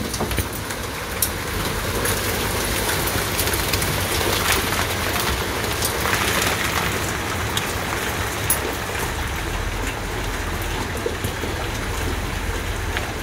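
Heavy pouring rain, a steady dense hiss full of the pattering ticks of drops striking the wet ground and surfaces.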